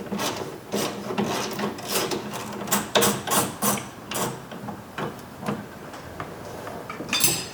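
Ratchet wrench clicking in quick irregular runs as a bolt is unscrewed, with a short scrape near the end.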